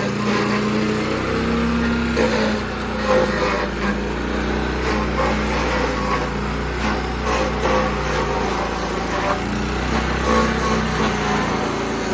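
Small stump grinder running steadily under load as its cutter wheel grinds into a big stump, with irregular short knocks and crackles through the engine sound.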